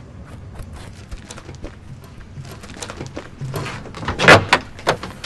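Scattered knocks, scuffs and clatters, with a louder cluster of knocks about four seconds in.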